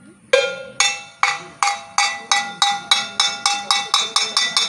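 A metal bell struck repeatedly, each stroke ringing on in several clear tones. The strokes start about a third of a second in at about two a second and quicken steadily to about four a second near the end.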